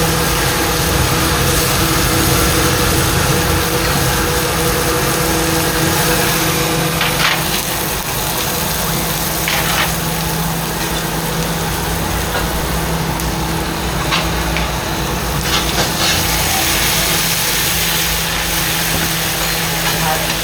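Steady machine hum at a few fixed pitches over a constant rushing noise, with a few short clicks.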